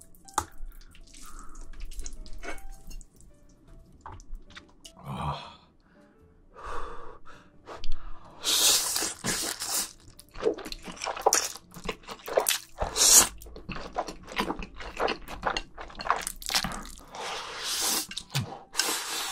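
Close-miked eating of black bean noodles: wet chewing and lip smacks with many small sticky clicks, broken by long loud slurps of the noodles about halfway through and again near the end.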